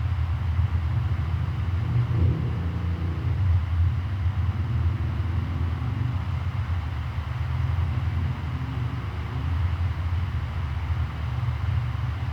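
Classic electric fan running steadily: a low motor hum under an even, airy whoosh of moving air.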